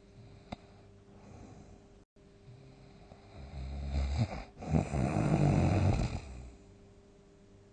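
A sleeping person's loud snore, about three seconds long with a brief break in the middle, starting a little past three seconds in.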